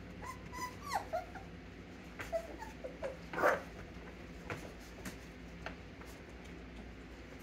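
Mini Bernedoodle puppies whimpering and giving short high yips as they play, with a louder yip about halfway through. Light clicks are scattered throughout, over a steady low hum.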